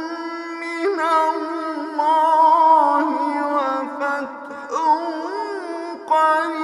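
A male reciter chanting the Quran in melodic tajweed style, with long drawn-out notes that waver and ornament in pitch, broken by short pauses between phrases.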